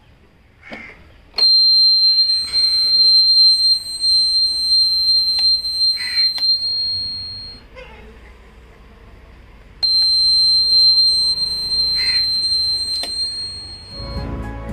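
Indicator buzzer fitted to a Honda Activa scooter sounding a steady high-pitched tone for about six seconds, then stopping, then sounding again for about four seconds. Each run starts with a click. The tone shows that the indicators are switched on and the newly installed buzzer is working.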